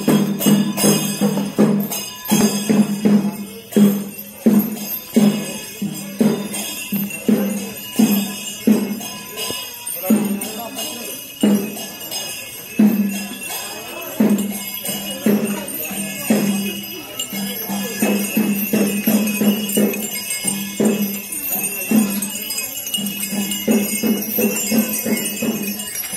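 Kerala chenda melam: chenda drums beating a pattern of repeated strokes, about one or two a second, over the steady metallic clashing of ilathalam hand cymbals.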